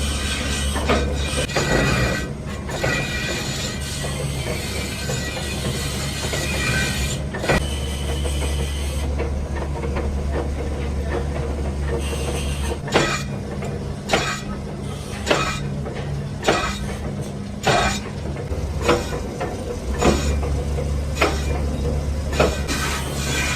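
A machine runs with a steady low hum while metal clanks and knocks repeat, coming more often in the second half, as in a workshop repairing an axle housing.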